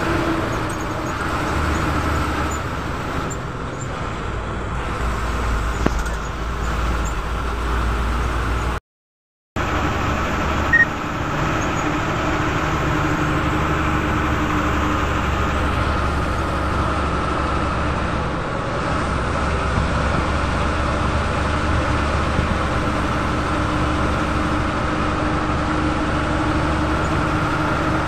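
Bus engine drone and road noise heard from inside the bus cabin as it drives a winding road, steady throughout. The sound cuts out completely for a moment about nine seconds in, and a single click comes shortly after.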